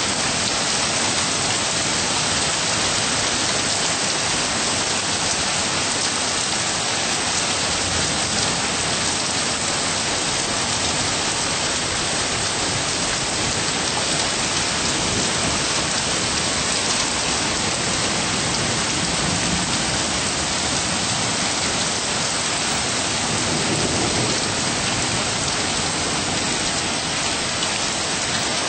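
Steady rain falling: an even, unbroken hiss of drops hitting the ground.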